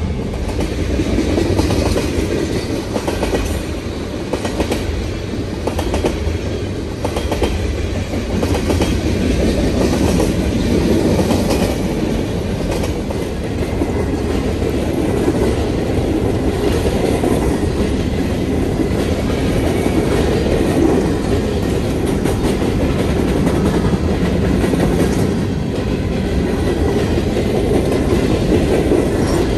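Freight cars of a Canadian Pacific train rolling steadily past at close range, with the steel wheels rumbling and clattering on the rails.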